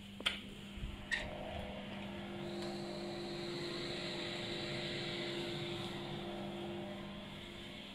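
Two clicks about a second apart, then a small extractor fan starts up and runs with a steady whirring hum.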